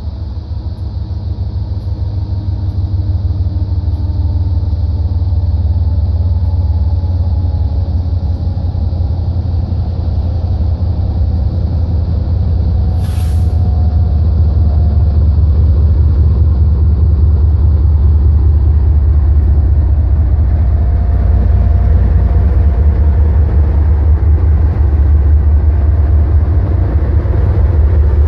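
Two BNSF diesel locomotives pulling a double-stack intermodal train, approaching and passing: a low engine rumble that grows louder as they near, then the steady rumble of the container well cars rolling by. A brief hiss sounds about halfway through.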